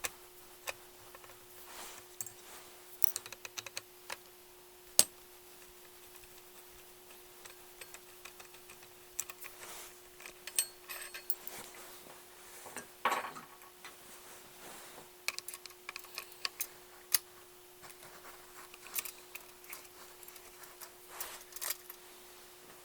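Scattered small clicks, ticks and taps of a hand tool and small metal and plastic parts being handled as an electric choke's black plastic cap and outer ring are unscrewed and lifted off a Quadrajet choke arm. One sharper click comes about five seconds in, over a faint steady hum.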